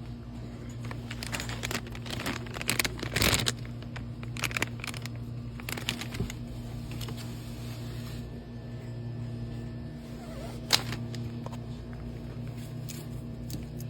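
Scattered rustles and clicks of small packaged items being handled, busiest about three seconds in, with one sharp click a little after ten seconds, over a steady low hum.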